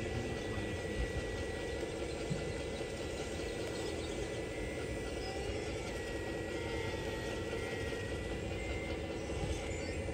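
Steady mechanical whine and hum of a 1:14 scale RC CAT 374F hydraulic excavator's pump and motors running as it digs, with a thin high whine that wavers slightly in pitch about three quarters of the way through.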